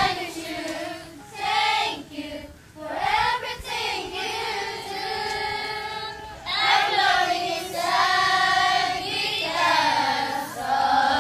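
A group of young girls singing together unaccompanied, a children's choir holding long notes in phrases with brief breaks between them.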